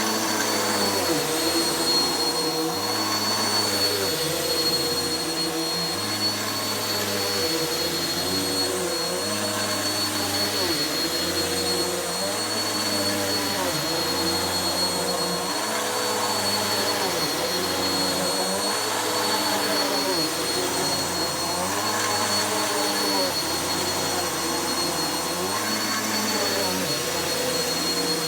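Vacuum cleaner running steadily with a high whine. Its sound rises and falls in a regular cycle about every two seconds as it is pushed back and forth over carpet.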